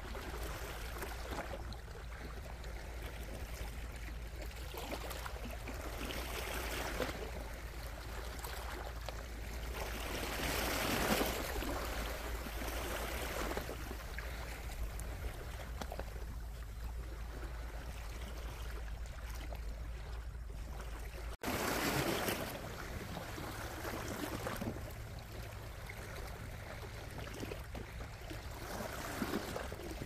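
Small sea waves washing and lapping against shore rocks, the wash swelling every few seconds over a steady low rumble.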